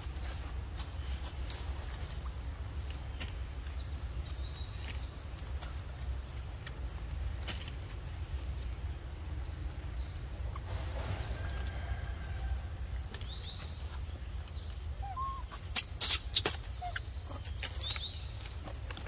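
Outdoor ambience: a steady high-pitched hum over a low rumble, with faint scattered short chirps. A brief cluster of sharp clicks comes about sixteen seconds in.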